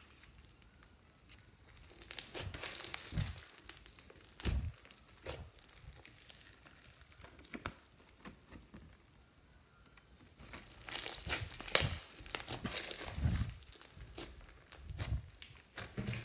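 Sticky glitter slime full of small foam beads being stretched, folded and squished by hand, making irregular sticky crackling and crinkling, with a few soft low thuds as it is pressed down. It is busiest at about two to five seconds and again from about ten seconds on, and quieter in between.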